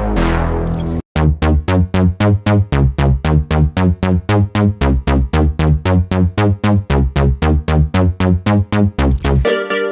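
Synthesizer playing a fast sequenced industrial bass line of short, punchy notes, about four a second, starting after a brief break about a second in. Near the end it gives way to a new held synth sound.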